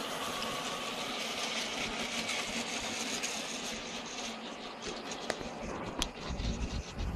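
Model train running steadily along its track, a small motor and wheels giving a continuous rattling hiss. A sharp click comes about six seconds in, followed by a few low thumps near the end.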